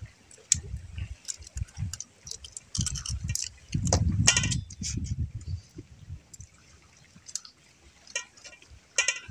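Eating noises from a seafood meal eaten by hand: irregular clicks and crunches with low knocks of handling, loudest about four seconds in.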